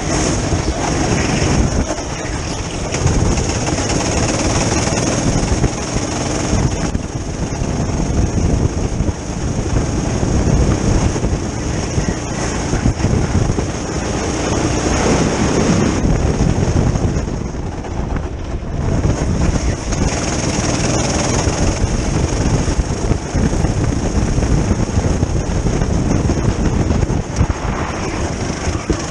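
Go-kart engine running hard at track speed, heard from the kart itself, a dense unbroken drone that dips twice, about seven seconds in and again around eighteen seconds in.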